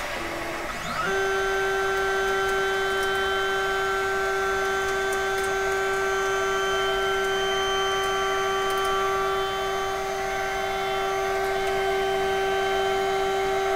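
3D printer's Z-axis stepper motor lowering the build plate as the cancelled print is stopped: a steady whine with several overtones that starts suddenly about a second in.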